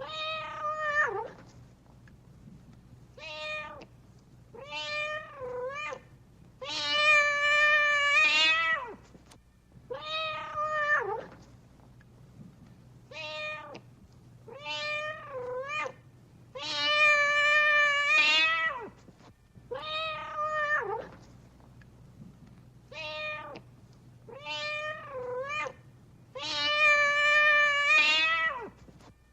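Domestic cat meowing over and over: clusters of short meows, each followed by a longer, wavering meow. The same sequence repeats about every ten seconds, as a looped recording.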